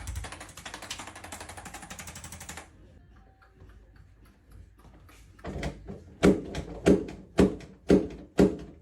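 A fast mechanical rattle that cuts off suddenly after about two and a half seconds. After a pause comes a run of heavy thumps, evenly spaced at about two a second.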